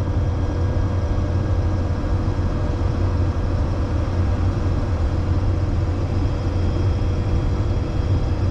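Case IH 2388 combine running steadily while harvesting soybeans, heard from inside the cab: a constant low engine drone with a thin whine held at one pitch.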